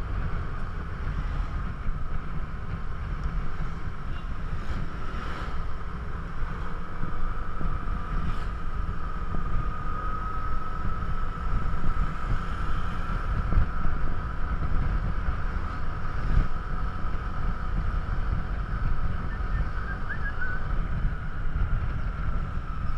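Wind buffeting the microphone while riding a Yamaha motor scooter, with the scooter's engine drone running steadily underneath as a constant high tone. A few faint clicks come through along the way.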